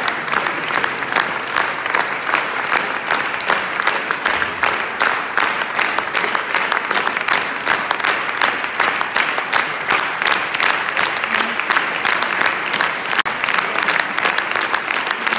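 Large audience applauding, many hands clapping steadily at a constant level.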